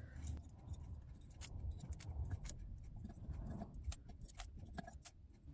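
Faint, irregular light metallic clicks and taps: steel pins being pulled out from around a freshly soldered brass ring and set down.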